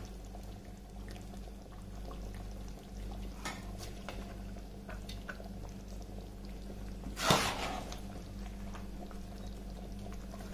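Part-boiled basmati rice being tipped into a metal pot, soft scattered rustles and patters of the grains landing, with one louder rustle about seven seconds in. A steady low hum runs underneath.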